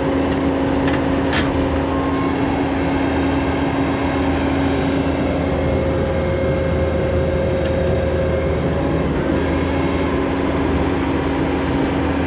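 Engine of a heavy machine running steadily, with a constant hum, as it stands by to hook up and tow a trailer.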